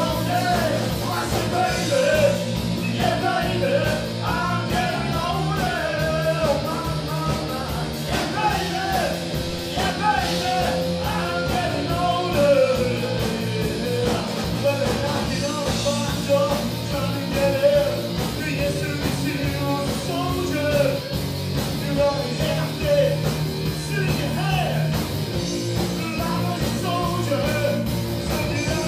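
Rock band playing live: a singer sings over electric guitar, bass guitar and drums.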